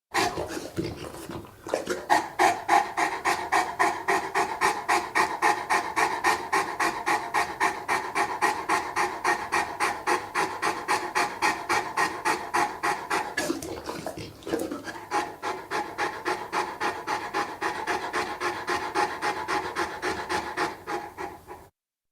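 Saint Bernard dog panting hard in a fast, even rhythm, with two short breaks, one about a second and a half in and one around the middle. The panting cuts off just before the end.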